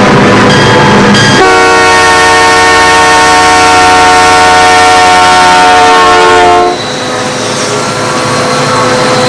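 Diesel freight locomotive air horn sounding one long chord-like blast of about five seconds, starting about a second and a half in and dropping slightly in pitch just before it stops, over the loud running of the locomotives' diesel engines.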